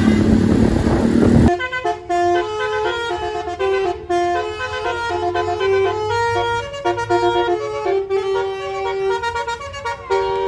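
Road noise with a horn for about a second and a half, then, after a sudden cut, a basuri melodic bus horn playing a tune in quick stepped notes.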